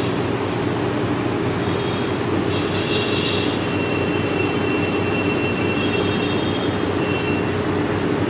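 Vaayu compressor air cooler running, its blower fan giving a steady, even noise with a low hum under it.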